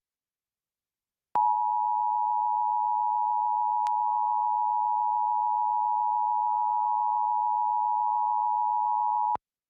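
Emergency Alert System attention signal: a steady two-tone alarm, two pitches sounded together, starting about a second and a half in and cutting off suddenly about eight seconds later. It marks the start of an EAS alert, here a required monthly test.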